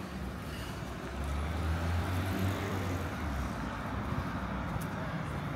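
A motor vehicle passing on the street: a low engine rumble with tyre noise, strongest from about one to three and a half seconds in, over steady traffic noise.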